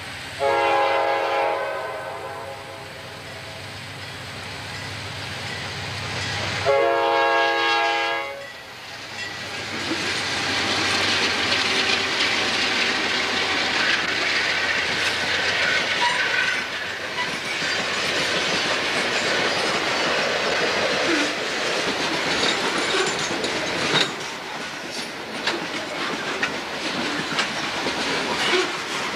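CSX freight train headed by General Electric C40-8 diesel locomotives. The horn sounds twice, each blast about a second and a half long: once just after the start and again about seven seconds in. The locomotives then pass at speed, and the freight cars roll by with a continuous rumble of wheels on rail and scattered clicks over the joints.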